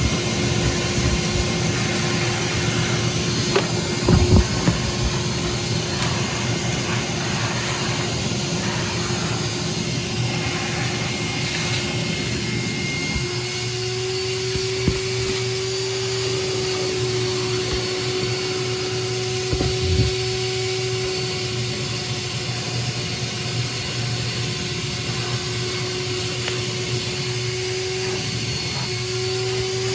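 Silver King vacuum cleaner running steadily while sucking up dirt, with a few brief clunks as debris is picked up, around four seconds in and again around twenty; its motor pitch steps up slightly about halfway through.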